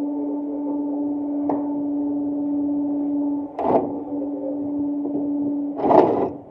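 Cordless drill motor running at a steady speed against a solar panel's metal mounting rail. It stops a little past halfway, starts again, and stops near the end. Each stop brings a short, loud, noisy clatter, the louder one at the end.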